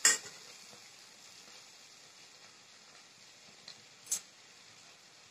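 A metal spatula clanks against a stainless steel kadai of frying potatoes. A faint, steady sizzle follows, and the spatula clinks once more about four seconds in.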